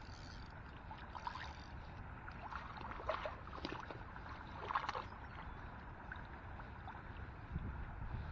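Faint water splashing as a hooked fish fights at the surface, in a few short splashes, the strongest about three and five seconds in, over a steady low rumble.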